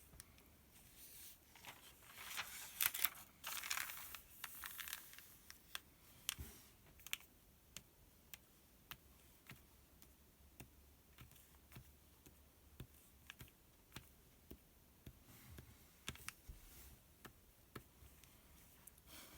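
Faint rustle and crinkle of a paper sales circular page being turned, followed by a long run of light, sharp taps on the paper, about two a second, as products on the page are pointed at.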